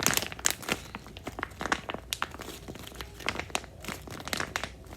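Plastic packaging crinkling and crackling in irregular bursts as it is handled, likely the wrapping of small squishy toys.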